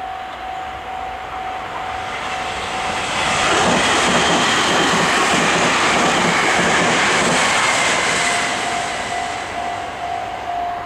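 A train passing over a level crossing, loudest for about four seconds in the middle, with a regular run of wheel clacks over the rail joints. A level-crossing warning bell rings steadily before and after the train noise drowns it.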